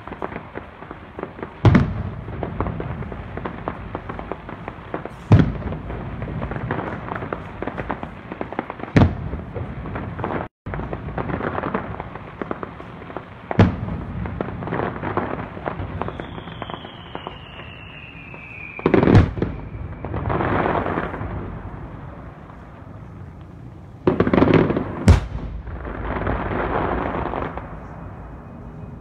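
Fireworks display heard from afar: aerial shells bursting with sharp bangs every few seconds, seven or so in all with two close together near the end, and crackling in between. A whistle falls in pitch shortly after the middle.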